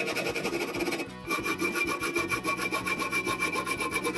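Hacksaw sawing through a metal bar clamped in a bench vise, in quick even strokes. There is a short break about a second in, then the sawing goes on.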